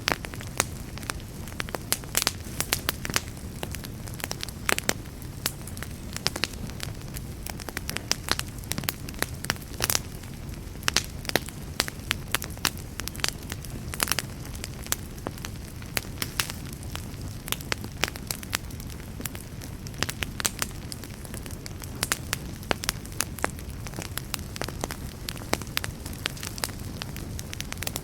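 Campfire burning with a low steady rumble and frequent sharp, irregular crackles and pops from the burning wood.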